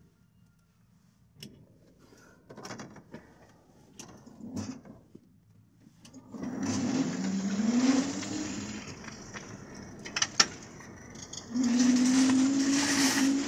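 A homemade electric cargo quadricycle with twin 350 W electric motors pulling away: after a few seconds of light knocks, a low motor whine rises in pitch as it accelerates, with tyre hiss on wet, slushy pavement. The whine eases, then comes back steady and louder near the end as it drives on.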